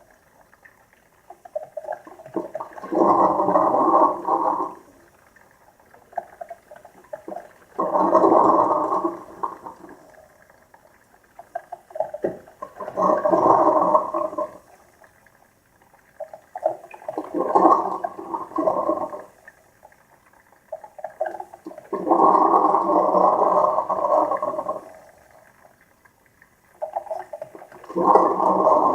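Two coffee makers brewing together, gurgling and sputtering in bursts of a second or two about every five seconds, with quieter gaps between, as the heated water is pushed up through the machines.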